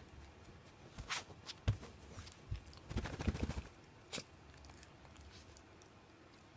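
A dog's mouth and breath noises: irregular wet clicks and smacks mixed with a few short, low snuffles, bunched between about one and four seconds in, then quiet.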